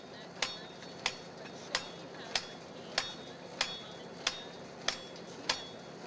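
A steady, even run of light ticks, about three every two seconds, each with a brief high ring.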